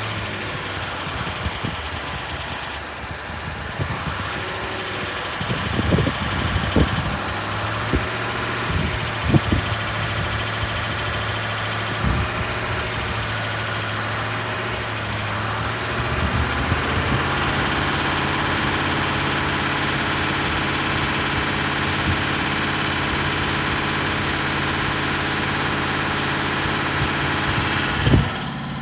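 Range Rover SDV8 4.4-litre twin-turbo diesel V8 idling with a knock or tap, which persists after new oversized big-end bearings and a reground crank; the owner suspects it is still an engine fault. A few sharp knocks stand out between about five and twelve seconds in, and the engine note gets slightly louder around halfway.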